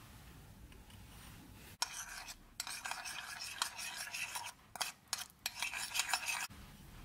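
A metal spoon stirs sour cream and sugar in a ceramic bowl, scraping against the bowl. The scraping starts about two seconds in, comes in stretches with short breaks, and stops shortly before the end.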